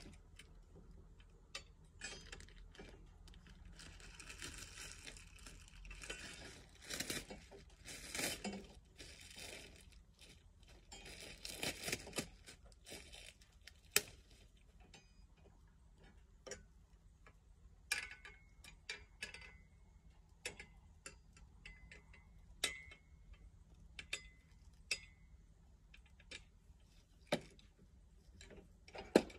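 Plastic wrapping rustling and crinkling in several bursts as it is handled and pulled off the mower's handle. In the second half come a series of separate sharp clicks and knocks from the handle parts being handled.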